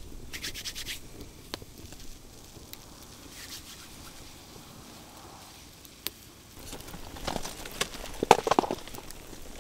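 Wood fire in an open fire pit crackling, with scattered sharp pops and clicks, and a stretch of rustling and shuffling near the end.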